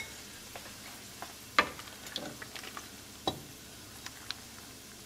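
A metal ladle scooping cooked lentils from a pot into a ceramic bowl, clinking sharply against the pot twice and ticking lightly in between. A faint sizzle of frying runs underneath.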